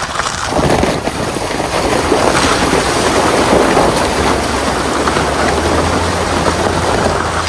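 Chevrolet Suburban driving through water: a loud steady rush of splashing that swells about half a second in, over the low hum of the engine.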